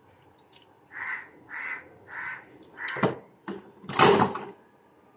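A crow cawing three times in quick, even succession. Then a knock about three seconds in, and a louder rattling clatter around four seconds in as a plastic bottle and hand tools are handled on a rug.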